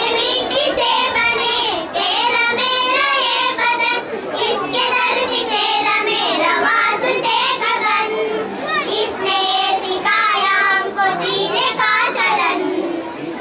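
A group of young schoolgirls singing a song together into a microphone.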